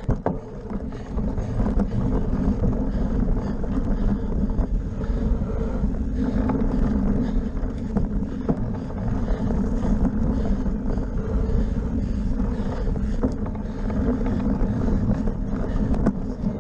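Wind rushing over a handlebar-mounted camera's microphone on a cyclocross bike, with the tyres rolling over dirt, grass and pavement and scattered rattles and clicks from bumps.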